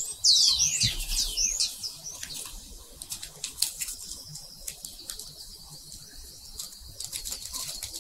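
Small birds chirping, quick rising and falling calls that are busiest in the first two seconds and then thin out. Light crackles and clicks run under them as a small seed packet is handled.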